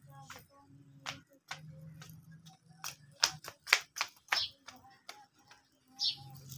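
A run of sharp clicks and taps, crowded together about halfway through, over a faint low hum.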